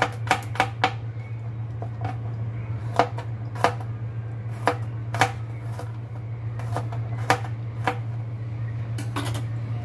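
Kitchen knife slicing garlic cloves on a plastic cutting board: sharp taps of the blade striking the board, a quick run of four at the start, then single cuts about a second apart. A steady low hum runs underneath.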